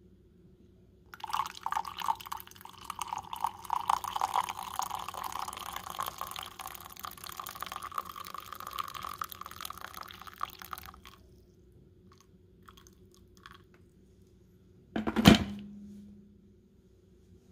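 Water poured in a steady stream into a ceramic mug of coffee for about ten seconds, the pitch creeping up a little as the mug fills, then a few last drips. About fifteen seconds in there is a single sharp knock with a short ring.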